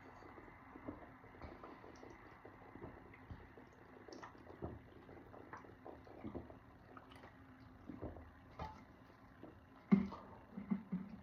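Faint swallowing and liquid sounds of soda being chugged, with scattered small clicks. A few louder, low sounds come near the end.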